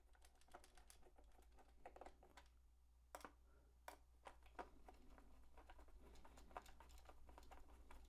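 Faint scattered clicks and taps of the multimeter's plastic casing and back cover being handled and fitted back together, with a few sharper clicks in the middle.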